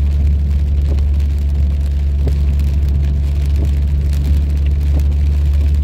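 Inside a car driving in heavy rain: a steady low rumble of the engine and tyres on the wet road, with rain on the windshield and the wipers sweeping, giving faint taps about every second and a half.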